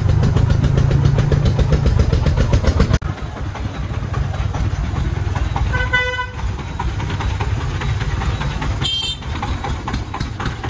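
Three-wheeled công nông truck's 24 hp single-cylinder diesel engine running under a load of sand with a fast, even thudding. A vehicle horn toots briefly about six seconds in, and a higher-pitched horn beeps about nine seconds in.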